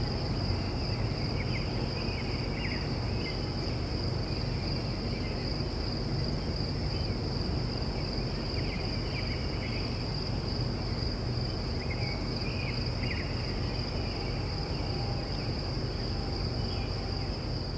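Distant crickets trilling in one steady high-pitched drone, with birds chirping in short bursts on and off, over a low steady background rumble.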